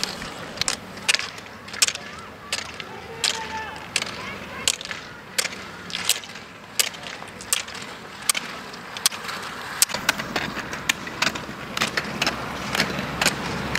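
Roller skis skating on asphalt: a faint rolling hum from the wheels under sharp clicks about every 0.7 s as the ski pole tips strike the tarmac with each push.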